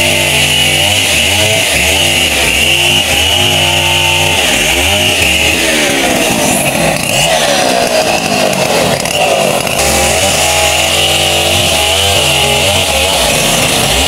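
Two-stroke chainsaw running, its engine speed rising and falling over and over as it is revved, sawing into a coconut palm log.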